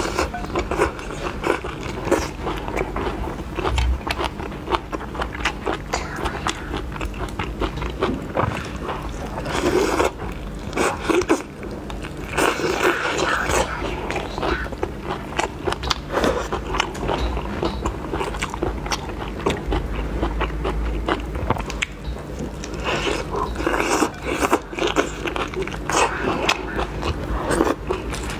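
Close-up eating sounds of raw marinated shrimp being bitten into, peeled and chewed: many quick clicks, smacks and scrapes throughout.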